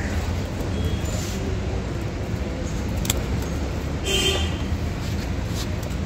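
Steady low rumble of outdoor background noise, with a single sharp click about three seconds in and a short pitched toot just after four seconds.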